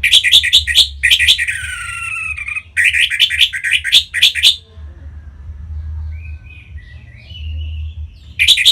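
Orange-headed thrush singing: loud runs of rapid, sharp notes broken by a long descending slurred phrase, then a softer warbling passage and another burst of rapid notes near the end.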